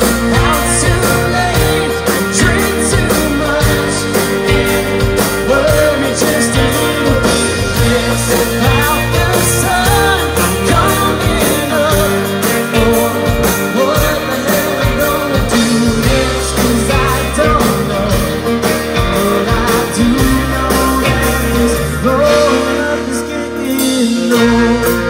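Live band music: a male singer with acoustic guitar over drums and keyboard.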